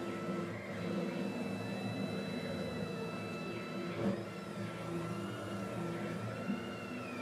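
Leadshine closed-loop stepper motors driving the PM-25MV mill's ballscrews through a CNC toolpath at 200 in/min, a steady whine whose pitches rise and fall in arcs as the axes speed up and slow down. A short knock comes about four seconds in.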